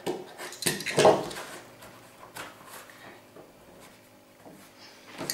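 Knocks and scrapes of handling on a plastic cutting mat: a utility knife set down and cut leather pieces moved about, with the loudest clatter about a second in.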